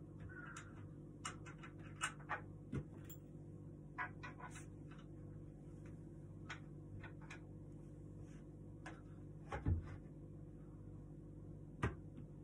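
Scattered light clicks and knocks from wooden table parts and their fittings being handled during assembly, with one louder low thump about three-quarters of the way through, over a steady low hum.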